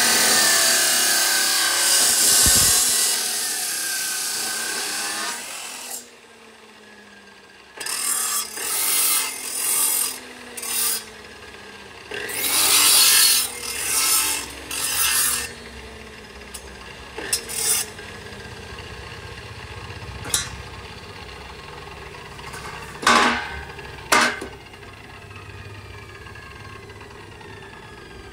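MAKPRO abrasive cut-off saw grinding through galvanized steel square tubing, a loud hiss that stops about six seconds in as the disc winds down with a falling hum. Then a run of short rasping grinds as a cut piece is held against the disc, and later a few sharp metal knocks as the tubing is handled.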